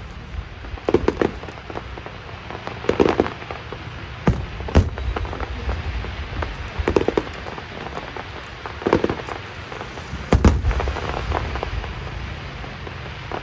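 Aerial fireworks shells bursting, a sharp bang or deep boom every second or two, over a steady hiss between the bursts.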